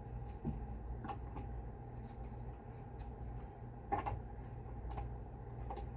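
Scattered clicks and knocks of vacuum cleaner parts being handled and fitted together, the sharpest about four seconds in, over a steady low hum.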